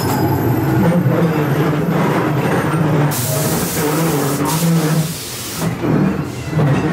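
Ghost train car rumbling along its track. About three seconds in, a loud hiss starts and cuts off sharply after roughly two and a half seconds.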